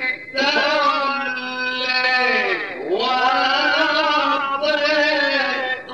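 A man reciting the Quran in the melodic mujawwad style, holding long ornamented notes, with a sweeping fall and rise in pitch about halfway through and short pauses for breath.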